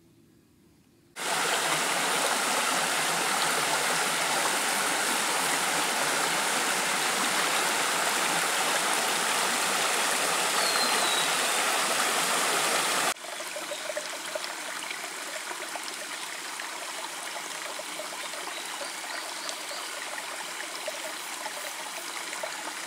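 Mountain stream running over rocks: a steady rush of water that starts abruptly about a second in. About thirteen seconds in it cuts to a quieter, softer rush of the stream.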